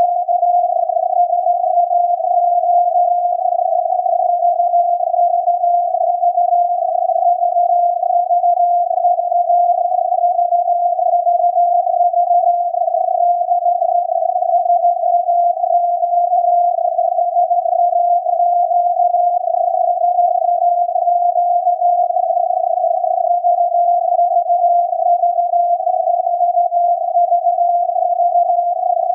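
Radio receiver audio of the SAQ Alexanderson alternator's 17.2 kHz longwave signal, tuned down to a tone near 700 Hz that wavers slightly in pitch inside a narrow band of filtered receiver hiss. The tone runs steady, with no on-off Morse gaps.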